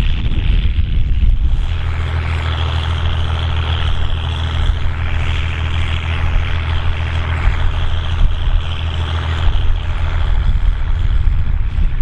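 Diesel engine of a Volvo BM tractor running steadily under load while ploughing, a deep, even engine note with a rushing noise over it.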